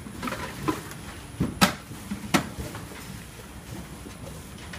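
Plastic CPE housings and parts being handled on a workbench: a few sharp clicks and knocks, the loudest about one and a half seconds in, over steady room noise.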